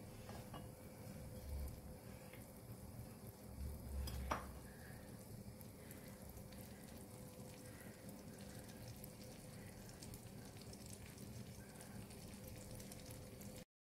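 Butter melting in a small frying pan over a gas burner, sizzling and crackling faintly. A soft knock about four seconds in.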